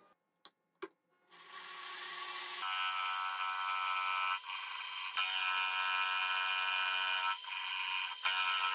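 Two clicks, then a benchtop milling machine's spindle motor spinning up and settling into a steady high whine, with a few brief dips.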